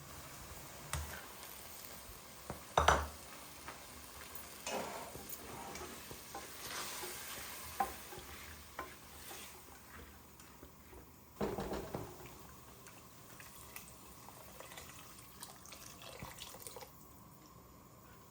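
Food sizzling in a pan while it is stirred, with a few sharp knocks of a utensil against the pan. The loudest knock comes about three seconds in and another comes near the middle.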